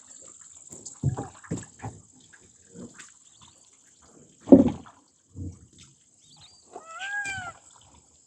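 Several short scattered thumps, the loudest about halfway through, then one short rising-and-falling animal call near the end, over a steady high-pitched hiss.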